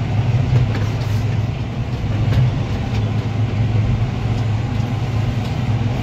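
Farm tractor's diesel engine running steadily as the tractor drives, heard from inside the closed cab as an even low drone.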